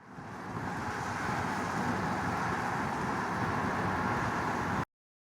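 Steady rushing ambient noise, a rumble and hiss with no distinct events, fading in over the first second and cutting off suddenly near the end.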